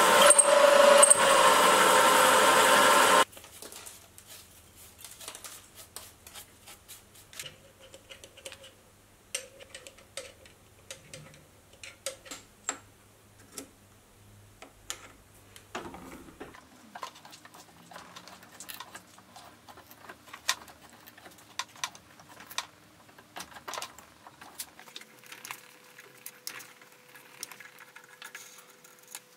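Drill bit boring into a steel block under power, a loud steady machine sound that stops suddenly about three seconds in. Then a hand tap turned in a tap wrench cutting threads in the drilled hole in the steel: faint scattered clicks and scrapes.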